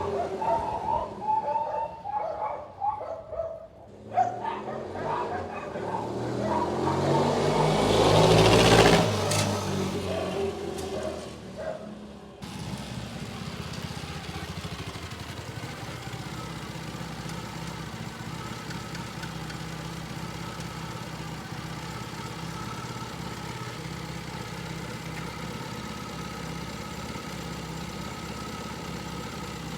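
Classic motorcycle engine running with uneven revs, building to its loudest about nine seconds in. After an abrupt change about twelve seconds in, it idles steadily.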